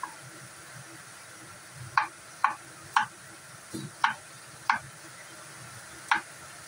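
Kitchen knife cutting through tomato and tapping down on a wooden chopping board: about seven sharp, irregularly spaced chops, with a short pause before the last one.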